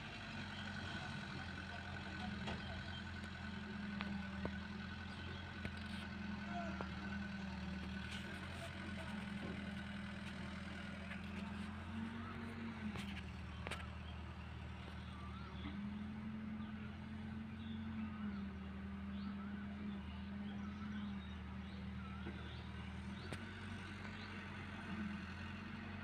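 Diesel engines of a working excavator and a tractor running at a distance: a steady low drone whose pitch rises slightly a few times, then settles back. Faint high chirps sound over it.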